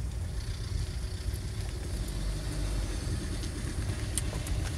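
Car driving slowly on a dirt road, heard from inside the cabin: a steady low rumble of engine and tyres, with a few faint ticks near the end.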